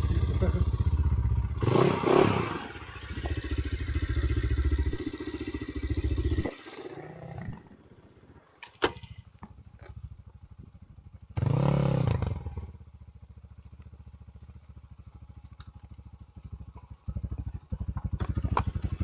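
Enduro dirt bike engine running in a steady low pulse, opened up hard for the first few seconds, then dropping to a quiet low-speed run. It revs briefly in the middle and picks up again near the end.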